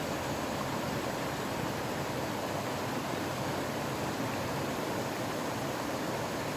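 Shallow river running fast over rocks, a steady, even rush of water.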